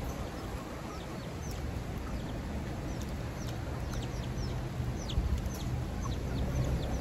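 Birds chirping: many short, high, falling chirps, several a second, over a steady low rumble.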